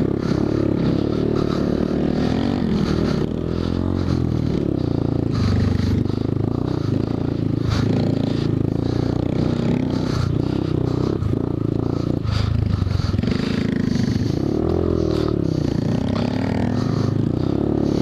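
Small motorcycle engine running while riding a sandy dirt trail, its pitch rising and falling with the throttle.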